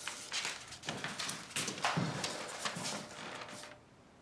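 Paper rustling and crackling in irregular bursts as a telegram form is handled, stopping about three and a half seconds in.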